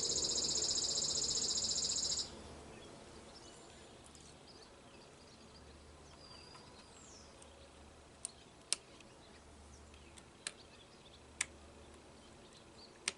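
A loud, steady insect trill cuts off suddenly about two seconds in. After that it is quiet apart from several sharp, separate clicks of small carburetor parts being handled.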